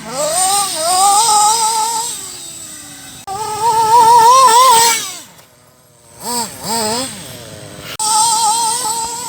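Thunder Tiger SB4 RC car's motor whining in four bursts of throttle, its pitch rising and falling and wavering, with a hiss of tyres under it.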